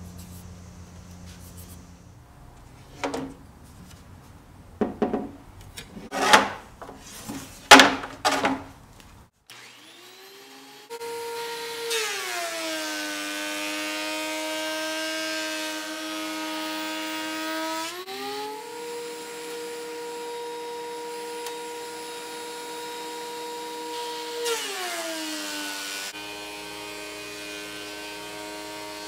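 DeWalt benchtop thickness planer running, its motor note dropping as a pine board feeds through the cutterhead and rising again as the board clears, then dropping once more under load. Near the end, a dust collector's motor gives a steady, buzzy hum. Before the planer starts, there are a few short, loud scrapes.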